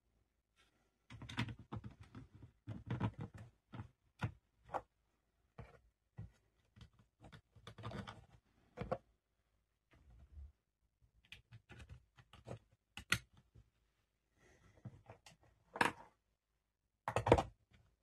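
Hard plastic clicking, knocking and rattling as the 3D-printed body shell of a scale model bulldozer is handled and fitted onto its chassis. The sounds come irregularly, with the loudest knocks near the end.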